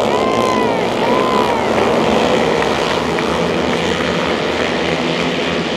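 A pack of single-cylinder flat-track racing motorcycles going past at speed, the engines blending into one loud continuous drone. In the first second or two, single engines stand out, rising and then falling in pitch as they pass.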